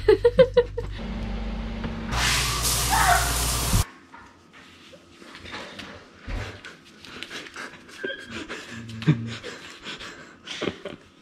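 A loud rushing hiss that cuts off suddenly about four seconds in, then a large dog panting, with light clicks and shuffling as it is petted and moves about.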